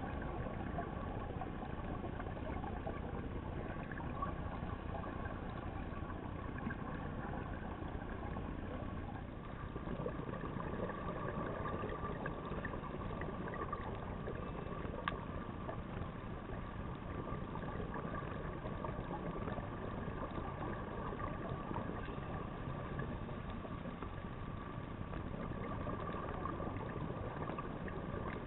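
Steady muffled underwater rumble and hiss recorded through a camera housing, with a faint steady hum and a single sharp click about halfway through.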